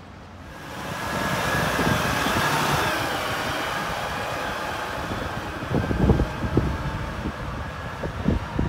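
Split rear loader garbage truck driving past close by: its engine and drivetrain noise swells about a second in, with a faint steady whine, then slowly eases off as it moves away. Near the end, low gusts of wind buffet the microphone.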